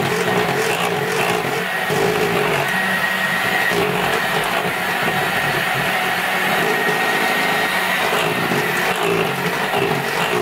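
Bosch electric hand mixer running steadily, its beaters whipping thick, glossy Swiss meringue (egg whites and sugar) in a small stainless-steel saucepan. The meringue is being whipped off the heat until it cools.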